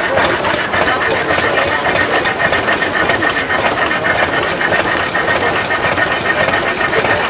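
Model three-cylinder vertical marine steam engine running steadily on steam, with a fast, even mechanical clatter from its cranks and valve gear over a steady hiss.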